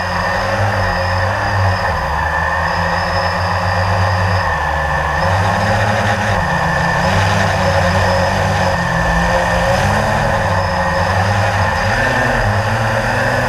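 Quadcopter drone's propellers and motors whirring steadily in flight, a constant whine over a rushing noise.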